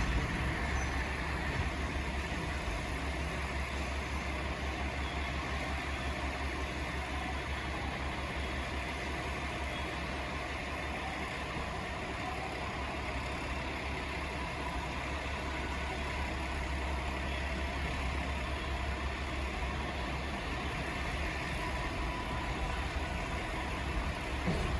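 EF510 electric locomotive standing at a platform, its onboard machinery giving a steady low hum.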